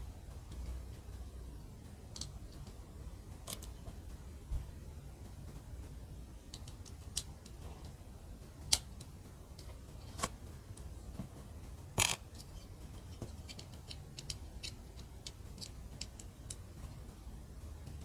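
Tiny plastic building bricks being handled and pressed together: scattered sharp clicks at irregular intervals, the loudest about nine and twelve seconds in.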